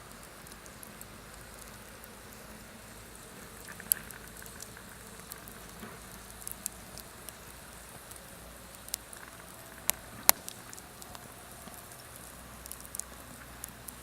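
Wood campfire crackling quietly, with scattered sharp pops, a few of them louder, over a faint steady hiss.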